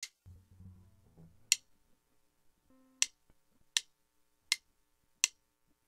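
A count-in of sharp clicks: two slow clicks about a second and a half apart, then three faster ones about three-quarters of a second apart, leading straight into the music.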